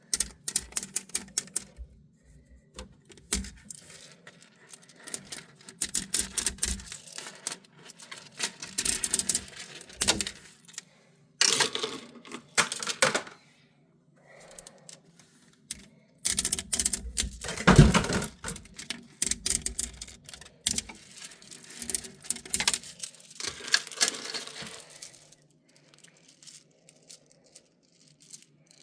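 3D-printed plastic snakes being pulled off the printer bed: bursts of rapid clicking and rattling from the plastic segments, on and off with short pauses. The loudest burst, with a knock, comes a little past halfway.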